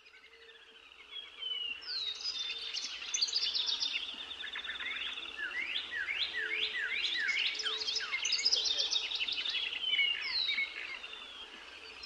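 Several songbirds singing and calling at once: a dense mix of quick, falling chirps and trills, fading in over the first couple of seconds.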